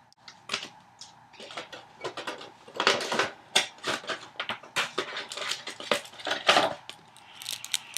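A Yu-Gi-Oh! Wind-Up tin and its packaging being opened by hand. It gives a continuous run of irregular crinkling, tearing and clicking handling noises.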